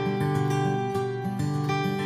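Background music: an acoustic guitar playing a gentle tune of plucked and strummed notes.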